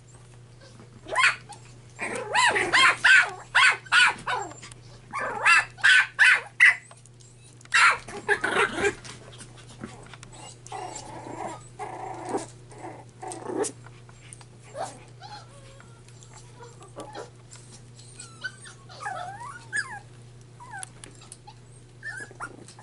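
Red poodle puppies growling and yipping as they play-fight, in loud clusters of short calls over the first nine seconds or so, then fainter, with a few small squeaky whimpers near the end.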